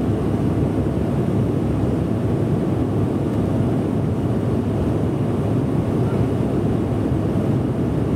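Steady low rumble of engine and airflow noise inside the cabin of a Bombardier CRJ700 regional jet with two rear-mounted General Electric CF34 turbofans, in the climb after takeoff.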